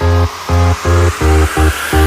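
Electronic dance music with a pulsing bass-heavy synth chord beat, about three pulses a second, and a rising noise sweep building up near the end.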